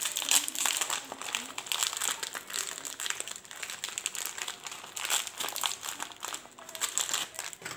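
Crinkly plastic Oreo biscuit wrappers being opened and handled, with dense, irregular crackling throughout as the packets are squeezed and emptied.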